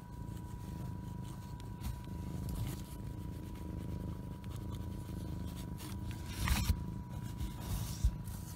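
Scraping and rubbing of fingers handling the camera right against its microphone, loudest about six and a half seconds in and again briefly near the end, over a steady low rumble and a faint steady high tone.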